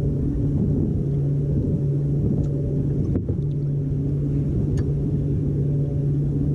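Steady low rumble of water and wind against a kayak, with a constant low hum under it and a few faint ticks.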